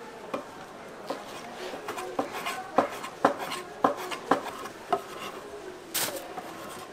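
Kitchen knife chopping boiled sundae and pig offal on a wooden cutting board: a run of sharp knocks about two a second through the middle, with a brief hiss near the end.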